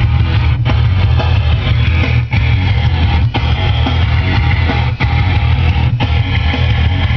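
Loud rock music with electric guitar and heavy bass and a steady driving beat.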